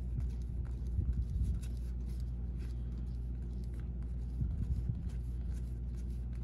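Baseball trading cards being handled and flipped through a pack, light paper rustles and clicks over a steady low hum, with a few soft low thumps.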